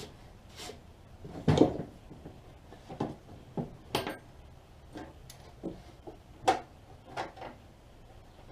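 Hand threaded-insert riveter tool clicking and clunking irregularly against metal as an insert is worked into a hole in the door, with two louder knocks, one about a second and a half in and one near six and a half seconds.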